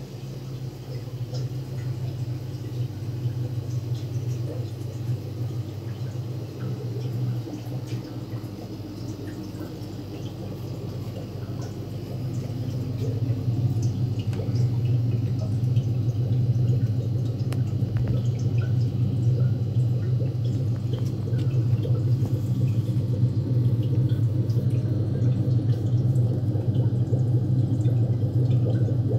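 Fish-room aeration: a steady low hum of aquarium air pumps with bubbling and dripping water from the tanks. It grows louder about twelve seconds in.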